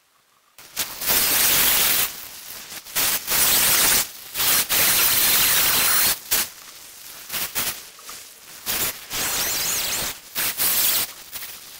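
Stihl chainsaw cutting into a fresh pine log, loud stretches of cutting broken by short lulls.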